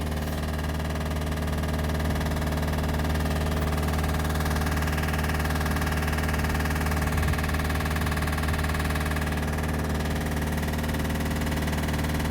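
Volkswagen Touran's 1.9 TDI diesel engine running steadily at idle, a constant low drone with an even hum of overtones. This is the engine brought in for a loud knocking noise.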